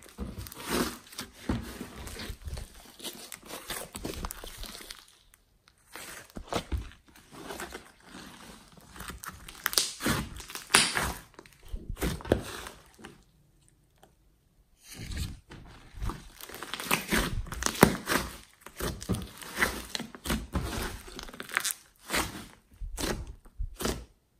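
Hands squeezing, kneading and poking a large mass of clay-mixed slime with foam beads: sticky squishes and fast runs of clicking pops. The sound comes in bursts, with brief pauses about five seconds in and again around fourteen seconds in.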